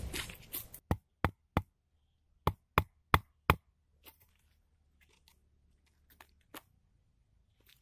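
A blade chopping wood: seven sharp woody chops, three and then four, about three a second, followed by faint scrapes and light ticks of the blade working along the wood.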